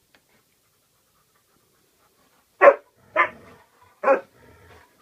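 A dog barking three times in play, short sharp barks about half a second to a second apart, with fainter low sounds after the second and third barks.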